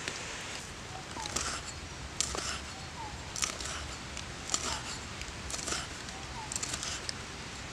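Cleaver chopping red chilies on a round wooden cutting board: sharp knocks about once a second, starting about a second in, over a steady background hiss.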